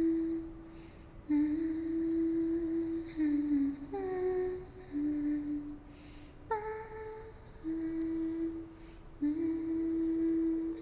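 A woman humming a slow, wordless melody in long held notes, with short breaths between phrases.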